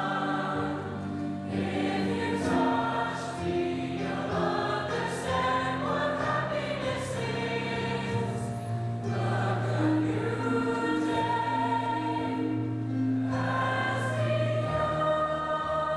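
A high school choir singing with instrumental accompaniment: sustained, held chords that shift every few seconds, with a new low note coming in near the end.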